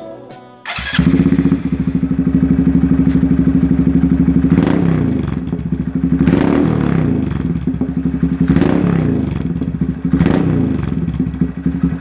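A Honda Grom mini motorcycle's small single-cylinder four-stroke engine runs through a newly fitted aftermarket Zoom exhaust, coming in about a second in. It idles with a fast, even exhaust pulse and is blipped four times at a steady pace, the pitch briefly rising each time.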